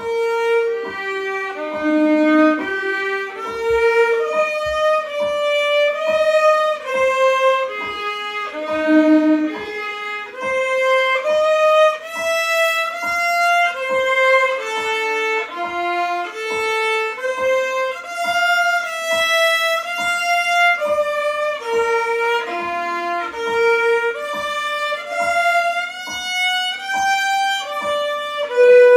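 Solo violin bowed unaccompanied, playing a melody of separate, detached notes at about two notes a second.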